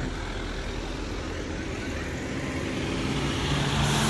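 A road vehicle's engine and tyre noise, growing steadily louder as it approaches.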